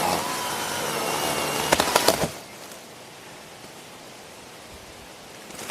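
Cordless electric chainsaw whining while cutting wood, with a few sharp cracks about two seconds in. The motor then stops, leaving only a faint hiss of outdoor background.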